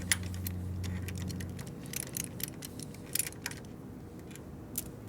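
Light metal clinks and ticks of tools and parts being handled on a Harley Ironhead Sportster transmission. A low steady hum stops about a second and a half in.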